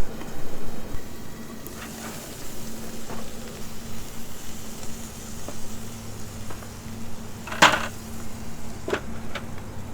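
Sausage frying in a pan, with a steady sizzle. A few light utensil clicks against the pan, and one sharp clank about seven and a half seconds in.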